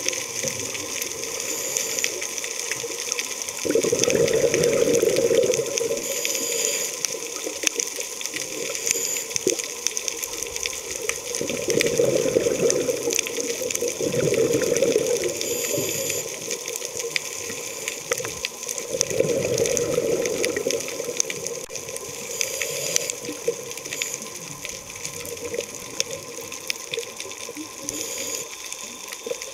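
Scuba diver breathing through a regulator underwater: rushing, bubbling exhalations about four seconds in, again around twelve to sixteen seconds, and around nineteen to twenty-one seconds. A steady crackle of small clicks runs underneath.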